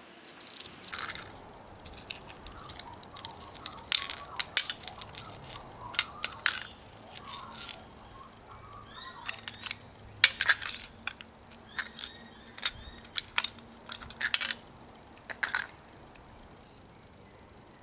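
Small plastic parts of a toy helicopter's gearbox clicking and rattling as the green plastic housing is handled and its white plastic gears are lifted out by hand. The clicks are sharp and irregular, and they stop about two seconds before the end.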